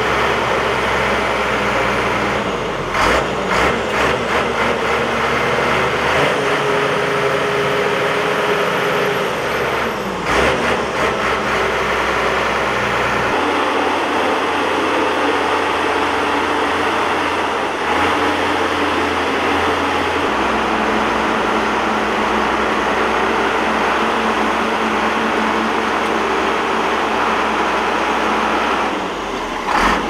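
Shantui crawler bulldozer's diesel engine running under load as it pushes earth, with clatter now and then.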